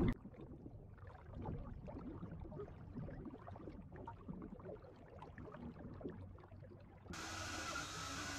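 Faint low rumbling background noise with light crackle. About seven seconds in, a louder steady hiss of steam venting from process pipes starts.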